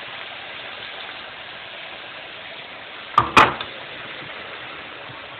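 Thin straw-cut potatoes frying in a pan of hot oil: a steady sizzle of bubbling oil. About three seconds in, a brief sharp double knock stands out as the loudest sound.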